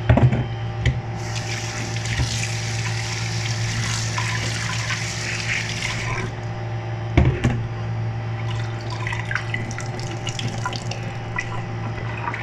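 Kitchen tap running into a steel sink as salted vegetable strips are rinsed under it; the flow stops about six seconds in, a knock follows, then lighter, patchy splashing as the rinsing goes on. A steady low hum lies under it all.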